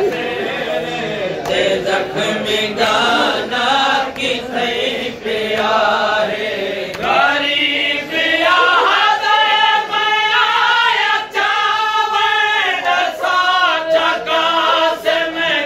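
A group of men chanting a noha, the Shia lament for Qasim at Karbala, together with a lead reciter, their voices wavering and held on long lines, fuller from about halfway through. Scattered sharp slaps cut through the singing.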